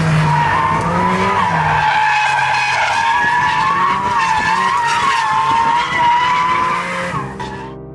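Porsche 718 Cayman GT4 RS tyres squealing steadily through a corner, the squeal wavering in pitch, with the car's naturally aspirated flat-six engine running beneath it. The sound cuts off abruptly near the end.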